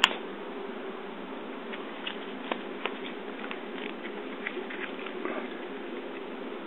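Small handling noises from gloved hands working a phone and a resistor jig: a sharp click right at the start, then scattered faint ticks and clicks over a steady low background hum.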